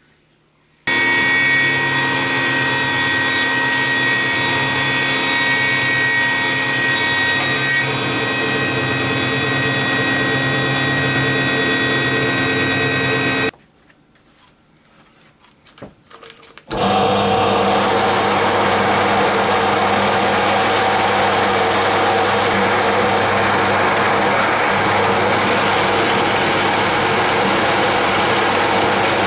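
Cabinet table saw running and cutting wood, a loud steady machine sound. It stops suddenly partway through, leaving a few seconds of faint small noises, then starts again just as suddenly at full level.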